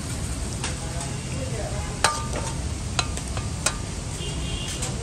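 Metal skimmer scraping and knocking against a steel karahi wok as cooked chicken is pushed out of it, with a few sharp clinks about two, three and three and a half seconds in. Under it runs a steady low rumble and hiss.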